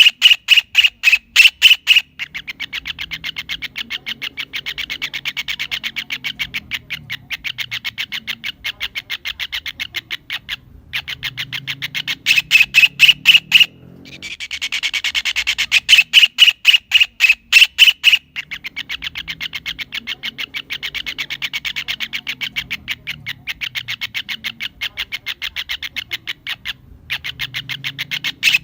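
Kingfisher (cekakak) calling: a rapid series of sharp, harsh notes, several a second. Short loud runs alternate with long, quieter runs, and the whole sequence comes round again about every 14 seconds.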